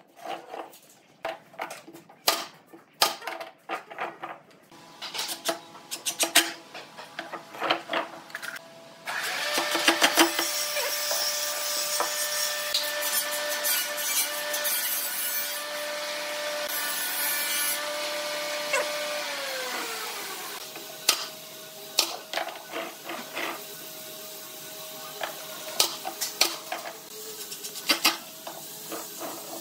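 Knocks and clatter of pine boards being handled and fitted together on a workbench. About nine seconds in, a motor starts and runs steadily for about ten seconds, then winds down with a falling pitch. Near the end a cordless drill drives screws into the wood.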